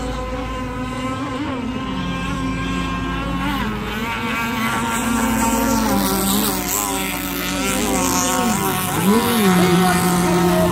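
Racing powerboat engines running at high revs, two or more engine notes heard together. One note's pitch dips and climbs back about nine seconds in.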